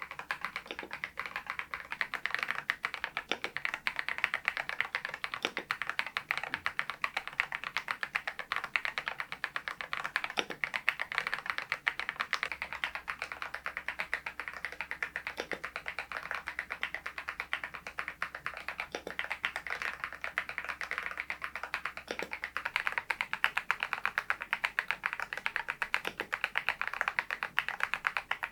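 RK R99 mechanical keyboard with its stock cream switches being typed on continuously, a steady stream of key clicks and keystrokes.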